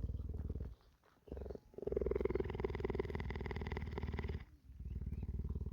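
Cheetah purring in long rattling stretches with brief pauses between breaths; the stretch from about two seconds in is louder and fuller than those before and after.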